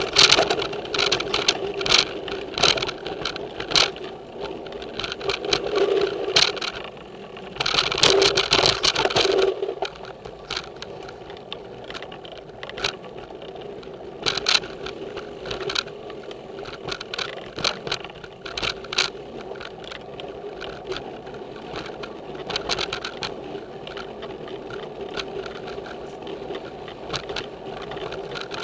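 Giant Trance X0 full-suspension mountain bike rolling fast down dirt singletrack, heard through its bike-mounted camera: the frame and parts rattle and clatter constantly over the bumps, over the noise of the tyres on dirt. A burst of heavier rattling comes about eight seconds in and eases off after about ten seconds.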